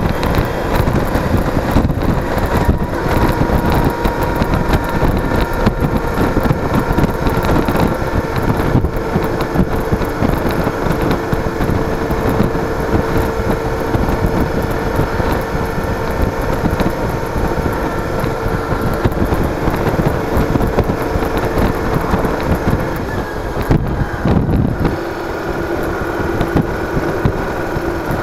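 Cruiser motorcycle under way: wind buffeting the microphone over a steady engine drone. About 25 seconds in the engine note drops in pitch and the wind noise eases.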